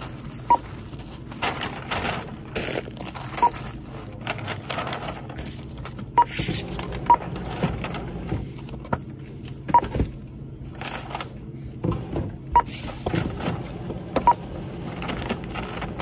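Checkout barcode scanner beeping as items are scanned: about seven short, high beeps a few seconds apart. Rustling and knocks of goods being handled and put into a paper bag.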